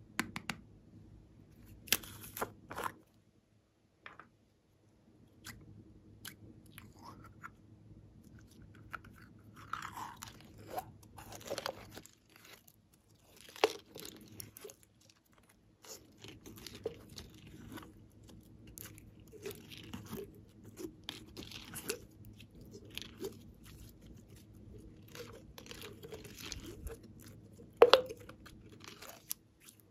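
Sticky pink glitter slime being pulled, stretched and squeezed by hand: irregular crackles, squelches and small pops. A few sharp clicks come about two seconds in, and one loud pop comes near the end.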